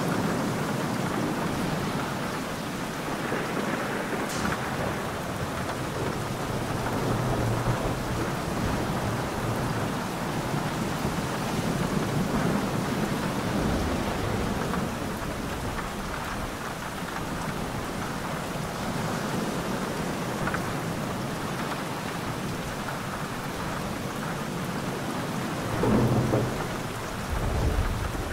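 Steady rain falling, with low rolling thunder rumbling several times; the loudest roll of thunder comes near the end.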